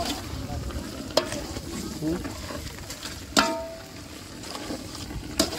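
Metal tableware clinking a few times during a meal, the loudest clink in the middle ringing briefly, over a low background of handling and mixing noise.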